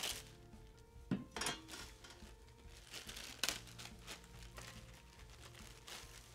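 Clear plastic packaging bag crinkling and rustling as an antenna wing is handled and pulled out of it, in a few short bursts.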